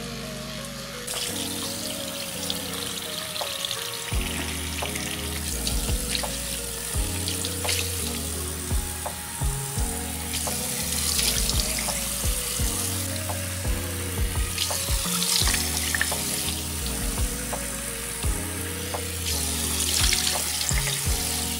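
Water running from a bathroom sink faucet into the basin, splashing as hands cup it and rinse a face. Background music with a steady beat plays over it.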